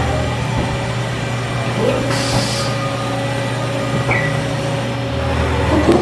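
Haas VF-6SS vertical machining center running with its spindle turning: a steady mechanical hum with a high whine over it. The pitch sweeps up and down twice, about two seconds in and near the end, and a brief hiss sounds around two seconds.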